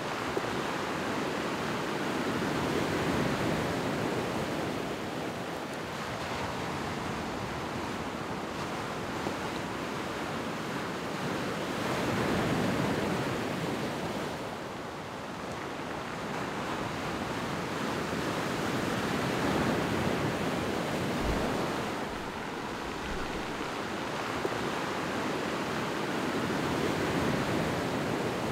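Sea surf breaking and washing over a stony beach. The rush of the waves swells and eases every several seconds.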